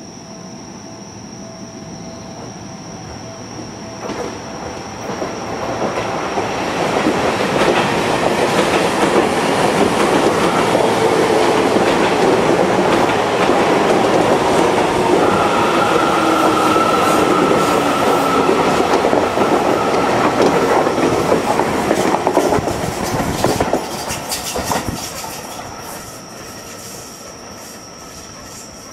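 Seibu 40000-series electric train pulling out of a station: its motor whine and wheel-on-rail noise build over the first several seconds, stay loud as the cars pass, then fade, with sharp clicks of wheels over rail joints near the end.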